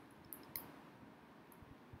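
Near silence with a few faint clicks of a stylus tapping on a writing tablet, the loudest about half a second in.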